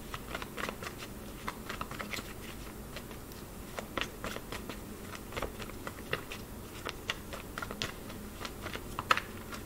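A deck of tarot cards being shuffled by hand: a run of irregular soft clicks and ticks as the cards slide and tap against each other.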